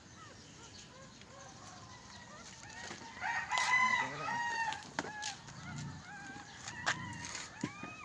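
A rooster crows once, a loud held call about three seconds in, among scattered shorter clucks and chirps. A few sharp clicks and knocks come in the second half.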